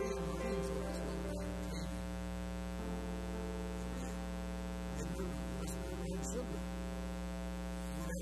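Steady electrical mains hum, a buzz with many overtones that holds unchanged throughout.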